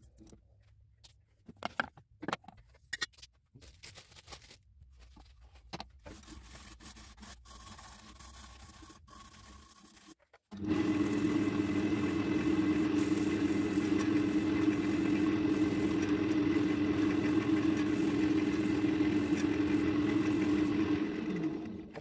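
Scattered clicks and light scraping of workshop handling. Then, about ten seconds in, a power tool's motor starts running steadily with a low hum and a higher whine, winding down just before the end.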